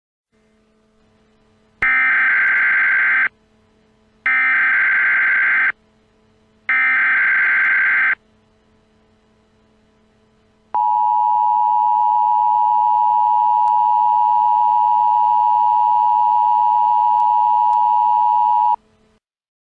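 Emergency Alert System alert start: three short bursts of SAME digital header data tones about a second apart, then the two-tone EAS attention signal (853 and 960 Hz together) held steady for about eight seconds before cutting off.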